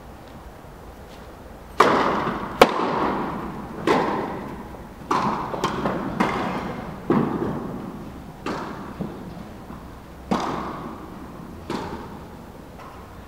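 Tennis rally: a string of sharp racket strikes and ball bounces, about one every second or so, each ringing on in the echo of an indoor tennis hall. The two loudest hits come about two seconds in.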